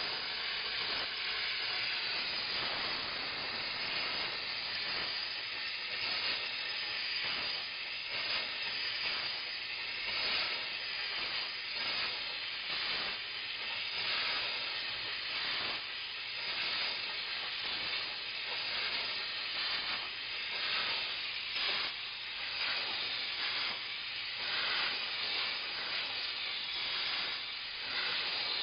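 KKC steam mop hissing as it pushes out steam, the hiss swelling and easing irregularly.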